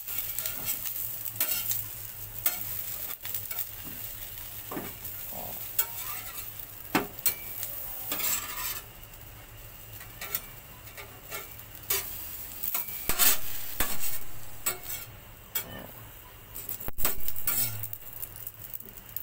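Eggplants grilling over an open wood fire: a steady sizzle with irregular crackles and pops.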